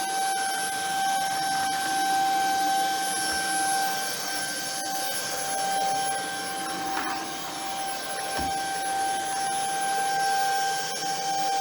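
Shark Ion F80 cordless vacuum running steadily with a high, even motor whine, with a light knock or two as it is pushed about.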